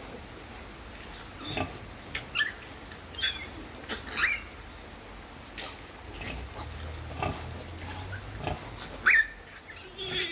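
Nursing piglets squeaking while suckling at a sow: short, high squeaks scattered about once a second, the loudest near the end.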